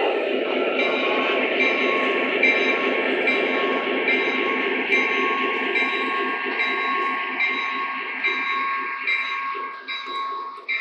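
Lionel O-gauge model train running on the layout: a steady rumble from the locomotive and wheels on the track, with a bell-like ring repeating about every two-thirds of a second. It grows quieter near the end.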